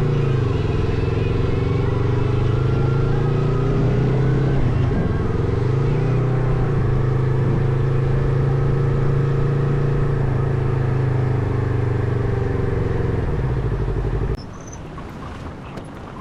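Motorcycle engine running under way, its pitch dipping and climbing back about five seconds in. The engine sound cuts off abruptly near the end, leaving quieter background noise.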